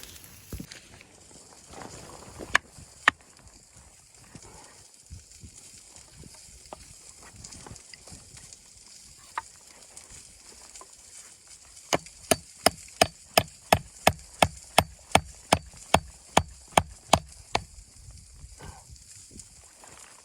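Two single sharp knocks near the start, then a quick run of about sixteen evenly spaced sharp knocks, roughly three a second, lasting some five seconds, over a steady faint hiss.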